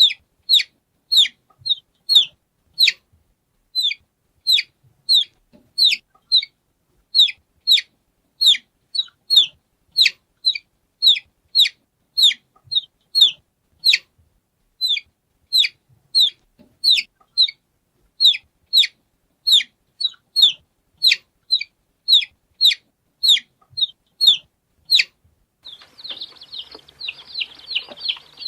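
Baby chick peeping: short, high, downward-sliding peeps repeated about two a second. About 25 seconds in, it switches to a busier, overlapping peeping of several chicks over a light hiss.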